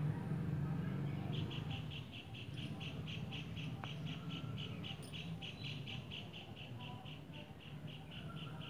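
A high-pitched chirp repeated rapidly and evenly, about five times a second, starting about a second in, over a low steady hum.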